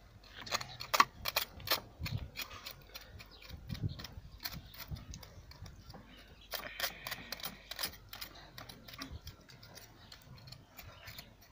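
A knife cutting and scraping at a small animal carcass on a wooden plank: irregular sharp clicks and taps, several a second, with a few low thumps.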